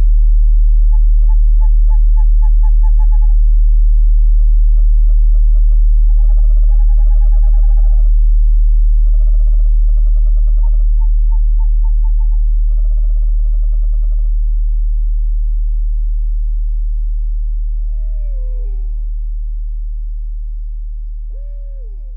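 Owl calls over a steady low drone tone: a series of short, rapid trills at a few steady pitches, then two falling calls near the end, while the drone slowly fades out.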